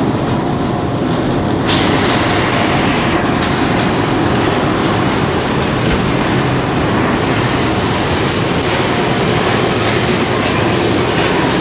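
Puffed-snack extruder line machinery running, with its conveyor dryer: a loud, steady mechanical noise with no pauses.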